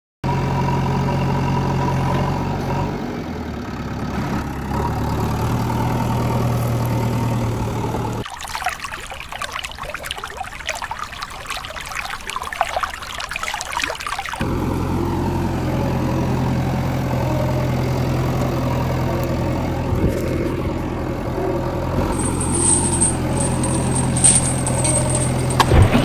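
Steady engine idling, broken in the middle by about six seconds of rushing water noise, after which the idling carries on.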